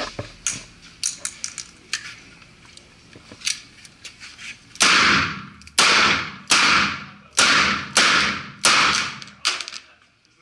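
Ruger GP100 revolver fired six times in quick succession, about one shot a second, each report ringing on in the range's reverberation. A few light clicks and knocks come before the first shot.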